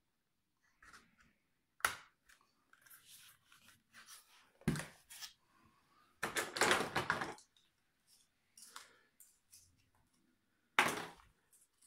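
Hard plastic drone parts being handled on a table: scattered sharp clicks and knocks, a heavier thump about five seconds in, and about a second of rustling and scraping around six to seven seconds in, with another sharp click near the end.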